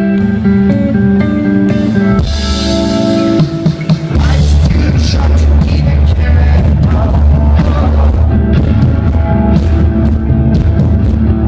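Live rock band playing in concert: held chords for the first four seconds or so, then the drum kit and bass come in and the full band plays on loudly.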